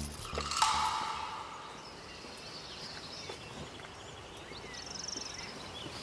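Background music fades out in the first second or so, leaving quiet outdoor ambience with small birds chirping and a short trill about five seconds in.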